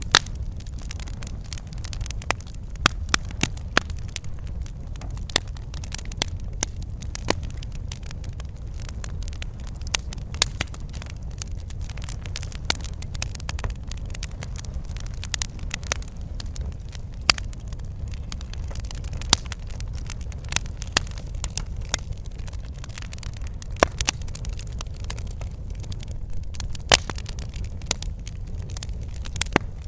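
Wood fire crackling in a fireplace: irregular sharp pops and snaps, several a second at times, over a steady low rumble of the burning.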